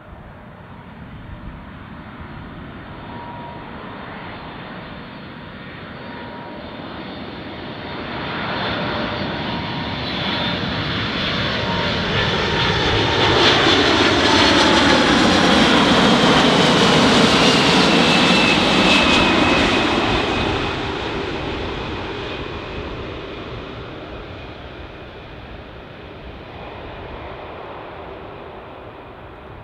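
Boeing 747-400 freighter with four jet engines flying low overhead on final approach, gear down: the engine rumble and whine build to a loud peak about halfway through, the whine drops in pitch as it passes, and the sound fades as it goes away.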